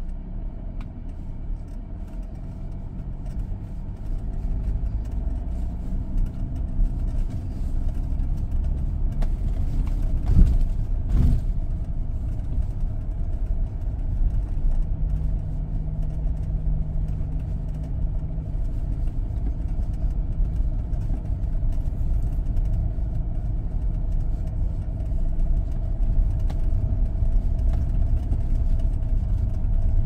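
SsangYong Rexton Sports pickup's diesel engine pulling steadily in low-range four-wheel drive up a steep off-road climb, the drone growing louder over the first several seconds. Two sharp knocks come about ten and eleven seconds in.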